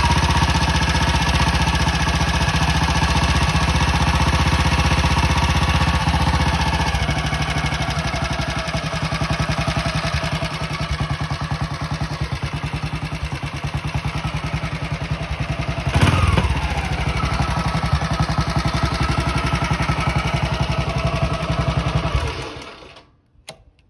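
Custom 611cc BSA Gold Star single-cylinder motorcycle engine idling with an even, rapid beat shortly after a cold start. About sixteen seconds in it is revved briefly. Near the end it is switched off and dies away within a second.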